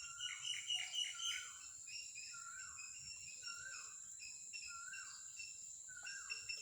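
Birds singing in the morning: a falling whistled note repeated about once a second, with quicker, higher chirps mixed in, over a steady high-pitched tone.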